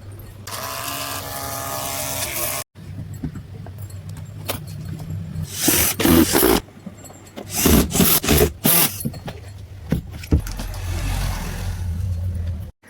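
Small electric pump motor of a battery-powered pesticide sprayer running with a steady whine, followed by a few separate bursts of hissing noise and clatter and a low hum near the end.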